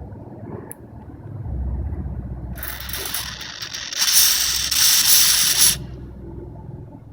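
Aerosol lubricant spraying in one continuous hiss of about three seconds, starting about two and a half seconds in and cutting off sharply, over a low rumble of handling.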